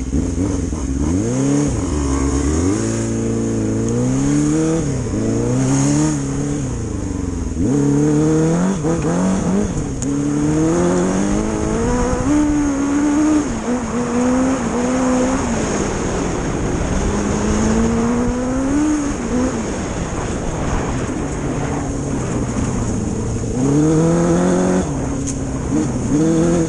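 Motorcycle engine being ridden hard, its pitch climbing, dropping back and climbing again many times as it accelerates through the gears and eases off.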